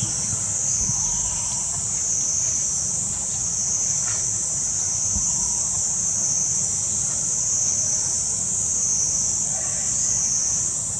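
Steady high-pitched insect chorus, its pitch band swelling and easing slightly, over a low rumble.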